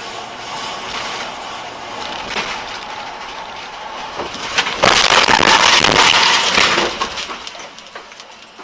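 Car driving with steady road noise heard from inside, then about five seconds in a sudden loud crash lasting about two seconds as it collides with another car.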